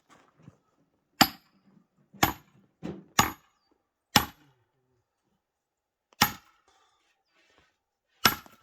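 Pine firewood being split with repeated sharp chopping blows, about seven strikes at an uneven pace with a pause of about two seconds in the middle.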